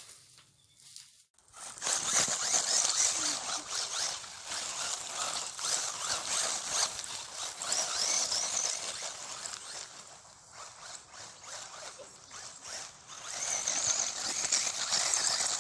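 WLtoys A959-B 1:18-scale electric RC buggy driving on gravel: a high, rasping hiss of motor and tyres that rises and falls with the throttle, starting about a second and a half in.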